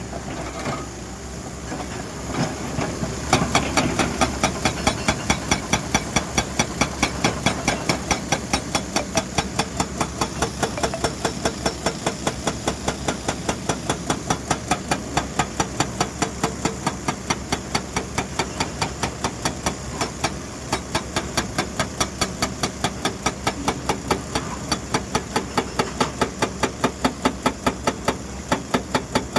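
Excavator-mounted hydraulic breaker hammering in a fast, even rhythm of about four blows a second, over the excavator's running engine. The hammering starts about three seconds in and breaks off briefly about two-thirds of the way through.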